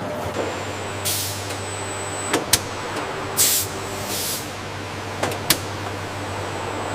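Steady hum of factory machinery with three short hisses of air and a few sharp clicks, twice in quick pairs.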